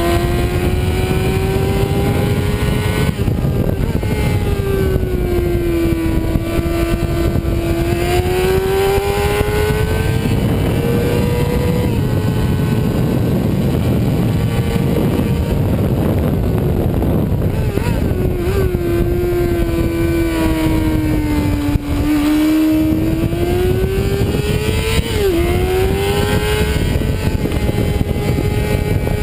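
Sport motorcycle engine at track speed, its pitch falling and climbing slowly through the corners, with a couple of sudden pitch steps from gear changes. Heavy wind rush on the onboard microphone runs underneath.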